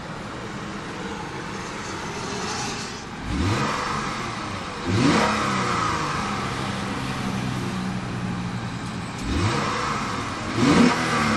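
2013 Lexus GS350 F-Sport's 3.5-litre V6 revved in Park, heard from the driver's seat: the revs rise sharply about three and five seconds in, hold steady near 3,000 rpm, then rise twice more near the end. It has a more pronounced tone from the F-Sport's tuned exhaust.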